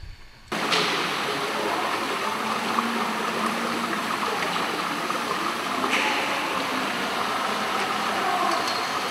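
Steady rush of running water in an indoor saltwater fishing pond, cutting in abruptly about half a second in.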